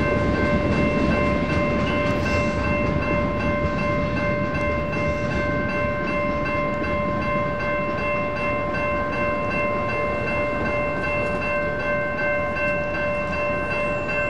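Electronic railroad-crossing bell (NEG) ringing steadily, a tone of several clear pitches. Under it runs the low rumble of a freight train rolling away, slowly fading as the crossing gates rise.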